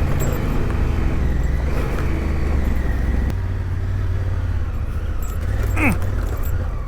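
Adventure motorcycle engine running steadily at low speed on a rough off-road track, with a deep rumble throughout. A brief falling squeal comes about six seconds in.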